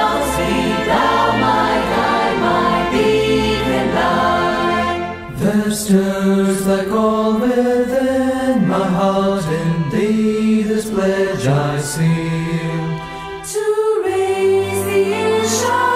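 Choir singing a hymn in long held notes over a low accompaniment, with short breaks about five seconds in and near the end.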